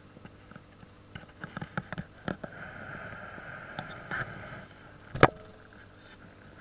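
Scattered light clicks and taps over a steady hiss, with one sharp knock about five seconds in.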